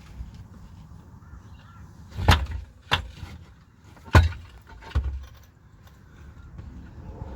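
Four sharp metallic knocks and clunks, spaced about a second apart, the loudest a little after the middle, from work under the car freeing a Holden T5 manual gearbox.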